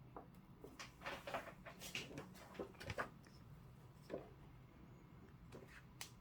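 Faint clicks, taps and rustling of small objects being handled: a quick cluster in the first half, then a few single clicks.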